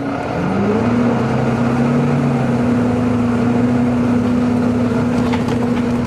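Volvo B9TL double-decker bus's 9-litre engine heard from inside the lower deck as it pulls along, giving the vacuum-cleaner-like whine that enthusiasts call a "hoover". The whine dips in pitch and climbs back about half a second in, then holds a steady note over the road rumble.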